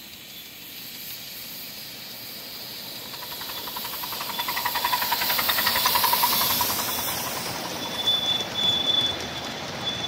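A 1/8-scale live-steam Pennsylvania Railroad K4sa locomotive and its passenger cars running past at speed, with steam hiss and a rapid, regular beat. The sound swells to its loudest as the engine passes about six seconds in, and the cars roll by after it with a thin, steady high tone near the end.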